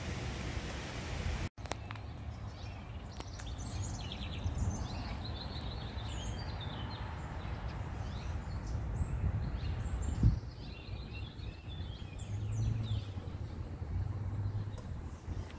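Birds chirping repeatedly over a steady low background rumble, with a single thump about ten seconds in.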